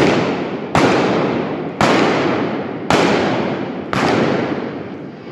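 Five revolver shots fired from horseback at balloon targets, about one a second, each followed by a long echo in the covered arena.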